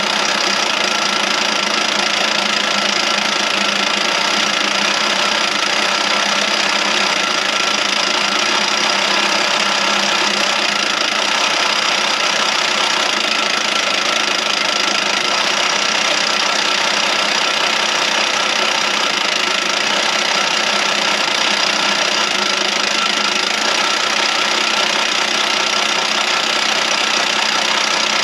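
Electric drill running steadily under load, its bit slowly boring through a thick, hard steel bar.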